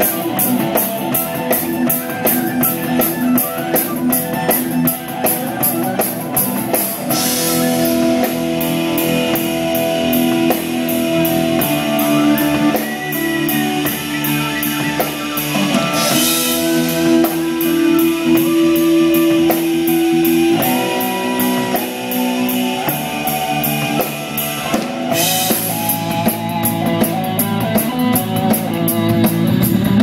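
Live rock band playing: drum kit, guitars and a lead line of long held notes. A fast hi-hat pattern runs at the start and again near the end, with a cymbal crash roughly every nine seconds.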